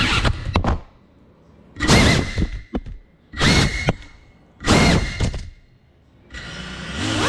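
Small FPV quadcopter knocking against a hard floor a couple of times as its motors drop out, then three short motor spin-ups of about a second each with a steady whine. Near the end the motors build up again to full throttle.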